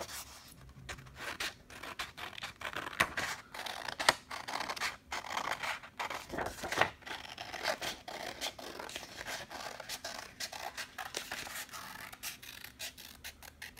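Scissors cutting a circle out of a sheet of black paper: a long, irregular run of short snips, with the paper rustling as the sheet is turned.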